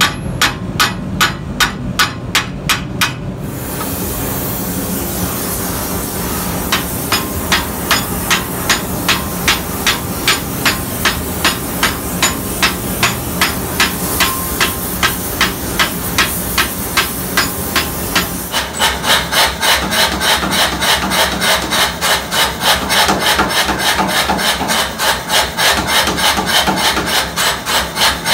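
Hand hammer striking the hot end of a steel bar held upright in a vise, about three blows a second, to upset it. A gas torch hisses steadily between the runs of blows and under them. From about 18 seconds in, a mechanical power hammer takes over with rapid, louder, steady blows on the hot bar.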